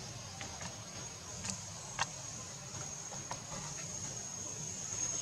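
Quiet outdoor background: a steady high-pitched hum with a few light clicks, the clearest about two seconds in. No monkey calls.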